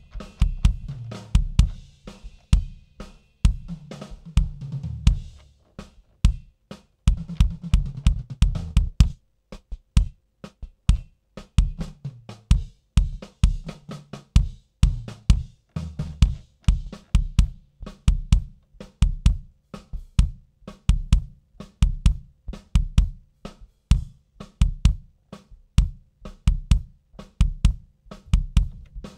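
Kick drum microphone channel playing a recorded drum groove, with snare bleed and low ringing sustain between the kick hits. A noise gate on the channel is being tightened, and from about nine seconds in the ringing between hits is mostly cut, leaving punchy kick hits with short silences between them.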